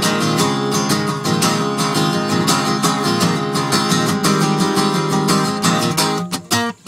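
An acoustic guitar being played with a steady run of strokes. The playing breaks off briefly just before the end.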